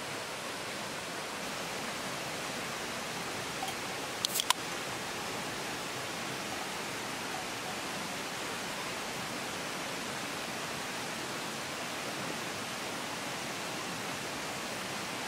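Steady rushing noise of running river water, with a couple of sharp clicks about four seconds in from an aluminium beer can's tab being opened.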